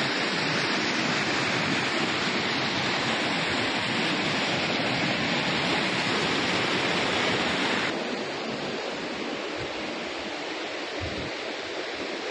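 Muddy floodwater rushing past trapped vehicles and debris, a steady loud rush. About eight seconds in it cuts to a quieter, duller rush of water.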